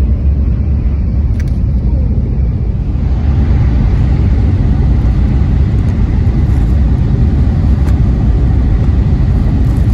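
Tokaido Shinkansen train running, a loud steady rumble that grows a little louder and brighter about three seconds in.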